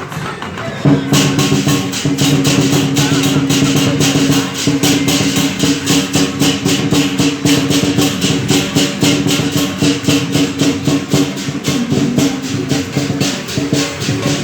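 Lion dance percussion: a drum and clashing cymbals beating a fast, steady rhythm of several strikes a second, over a sustained low ringing.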